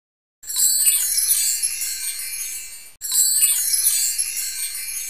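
A high, shimmering chime sound effect of many tinkling tones, like a wind chime, starting about half a second in and fading away. It is played twice as identical copies of about two and a half seconds each.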